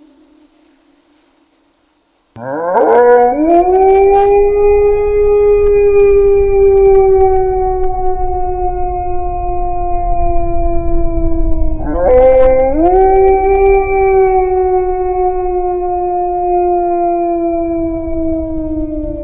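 Wolf howling: two long howls, each sweeping quickly up in pitch, then held and slowly sinking. The first comes in about two seconds in and the second about twelve seconds in, over a low steady rumble.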